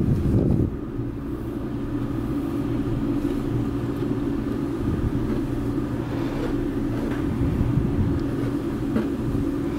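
Grey kitten purring while being stroked: a continuous low rumble with a steady hum underneath, swelling briefly right at the start and again a few seconds later.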